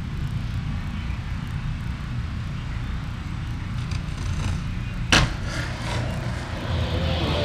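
Steady low outdoor rumble, with one sharp skateboard clack about five seconds in as the board hits or pops off the roof.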